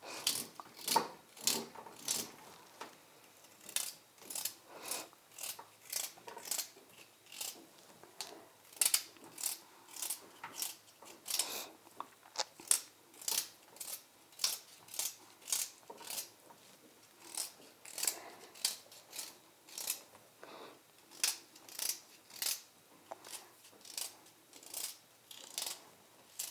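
Knife slicing through a raw carrot, a steady run of short crisp cuts a little over one a second.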